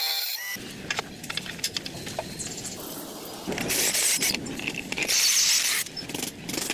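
Hand-working noises on plastic parts: scattered clicks and knocks, with two longer bursts of scraping hiss a little past halfway.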